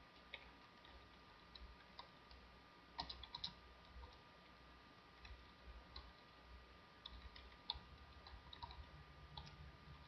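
Faint, irregular clicks of keys being typed on a computer keyboard, over a low steady hum.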